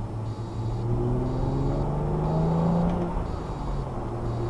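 Car engine and road noise heard from inside the cabin. The engine note rises as the car accelerates, then drops back about three seconds in.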